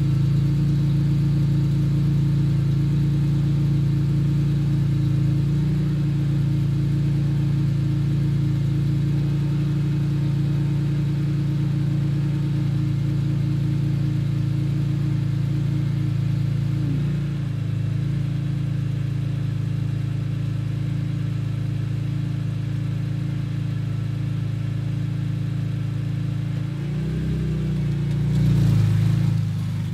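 2004 BMW E46 M3's S54 inline-six idling after a cold start, heard through an Eisenmann Race rear muffler as a steady, deep exhaust note. The idle steps down slightly a little past halfway. Near the end the engine note rises briefly as the car pulls away.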